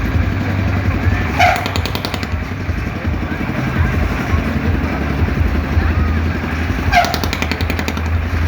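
Kora-kora swinging pirate-ship ride running: its machinery gives a steady low engine drone, with a brief rattling burst twice, about five and a half seconds apart.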